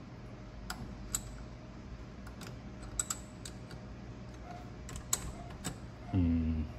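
Scattered light metallic clicks and taps as the parting tool on a mini lathe's tool post is loosened and adjusted by hand, about a dozen irregular ticks.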